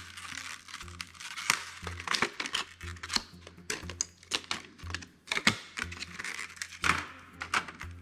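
Clear plastic clamshell packaging of RAM modules crinkling and clicking as it is handled and opened, with many sharp clicks scattered through.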